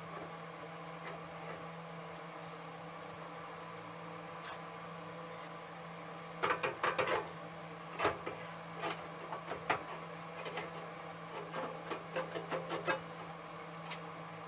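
Metal parts of a snowblower's auger assembly clinking and knocking in quick irregular clusters from about halfway in, over a steady background hum, as the keyway is worked to line up with the sprocket.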